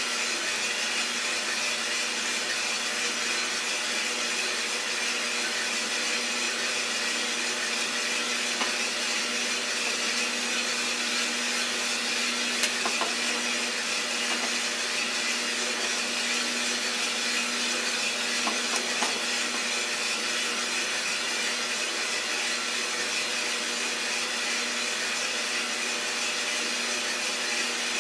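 Iroster 600 coffee roaster running steadily: an even whirring motor and fan noise with a low hum, and a few faint, sharp pops about a third and two thirds of the way through.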